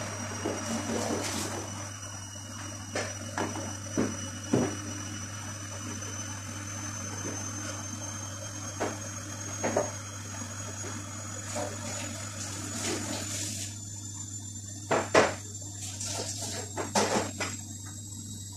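Water running from a kitchen tap, stopping about thirteen seconds in, with scattered sharp knocks of kitchen items being handled, loudest near the end. A steady low hum and a faint high whine sit underneath.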